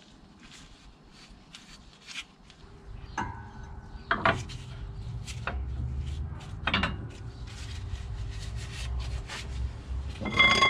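Handling of a Ford Transit diesel vacuum pump as it is lifted from a parts tray and set on the plates of a hydraulic shop press: scattered clicks and knocks over a low rumble, with a couple of ringing metal clanks, the loudest just before the end.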